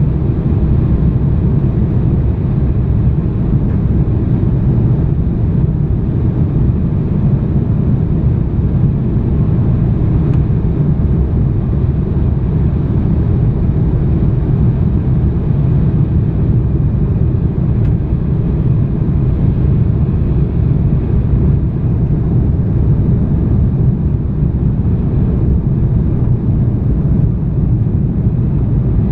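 Steady low rumble of an airliner's cabin noise, the engines and airflow heard from inside the passenger cabin with no change in level.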